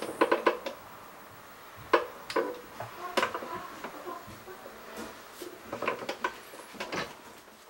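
A Herman Miller Aeron chair's tilt mechanism creaking and clicking as the sitter reclines and rocks back, in several bouts a second or more apart. The creak has grown loud after about a year of use.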